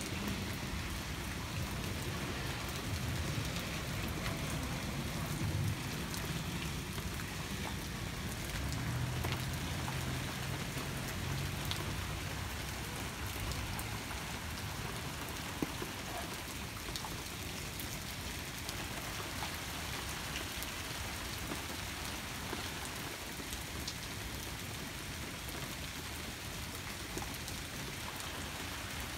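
Steady heavy rain falling in a thunderstorm, with a low rumble of distant thunder through the first half that fades away.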